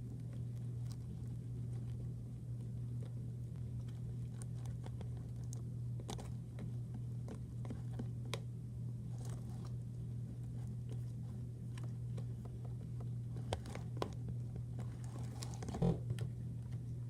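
Scattered light clicks, scrapes and crinkles of hands handling slime-making materials and a bowl, a little louder a few times near the end, over a steady low hum.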